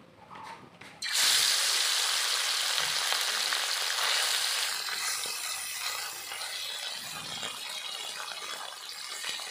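Small boroli fish going into hot oil in a metal karai: a sudden loud sizzle about a second in, which slowly dies down as the fish fry.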